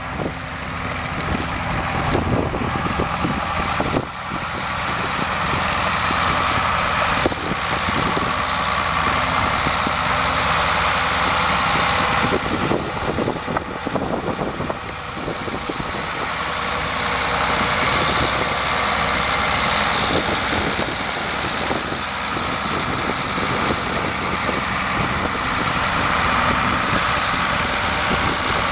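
A 1986 Case 3594 tractor's six-cylinder 8.3-litre turbo diesel engine running steadily as the tractor drives.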